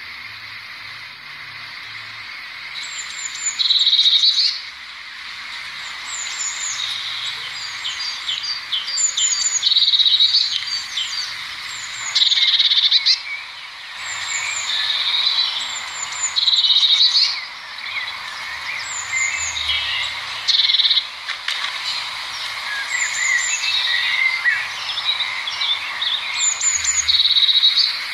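Blue tit singing: repeated phrases of a few high, thin notes followed by a trill lasting about a second, coming every few seconds, with other small birds chirping behind.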